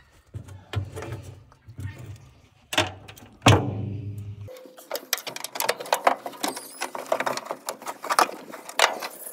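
A bolt dropped while fitting the starter falls into the engine bay with one loud, sharp metal clank about three and a half seconds in. A long run of small clicks and rustles follows as a hand searches down among the wiring and parts.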